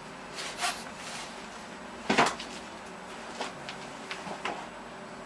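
Clunks and scrapes of a steel go-kart axle shaft being handled and fitted into the axle hangers on the buggy frame, with the loudest knock about two seconds in and a few lighter taps after it.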